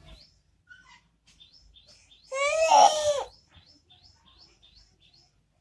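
Fledgling bird giving short high chirps about twice a second, calling for its parent. About two seconds in, one much louder drawn-out cry lasts about a second.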